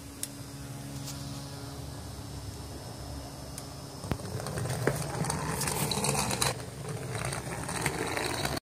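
Tiny USB fan's small motor running with a steady buzzing hum and rushing air, the motor vibrating loudly; the air noise grows louder about halfway through, with a couple of clicks, and the sound cuts off abruptly just before the end.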